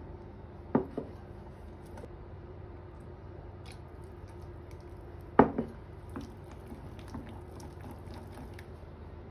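Wire whisk beating egg yolk and oil in a stainless steel bowl to make mayonnaise, with wet squishing and light clicks of the whisk against the bowl. Two sharp knocks stand out, about a second in and about five seconds in, over a steady low hum.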